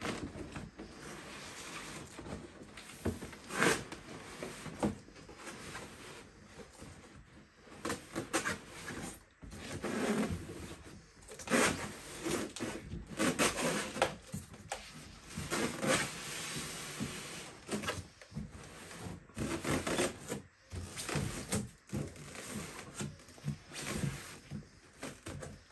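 Handling noise from a large cardboard statue box being turned and opened: irregular scraping and rustling with scattered knocks.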